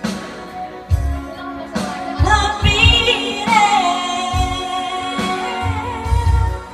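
A woman singing into a microphone over pop backing music with a steady low beat; her voice comes in about two seconds in and holds one long note.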